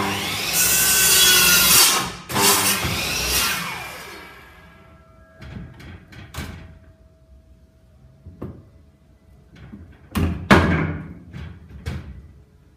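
Electric mitre saw starting up and cutting through a length of timber, with a second short cut about two seconds in, then the blade spinning down with a falling whine. A few sharp knocks and thumps follow, loudest around ten seconds in.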